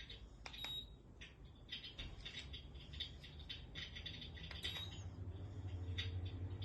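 Electric fireplace running: a short electronic beep from its controls about half a second in, then irregular soft crackling clicks, with the low hum of its heater fan building and growing steady near the end.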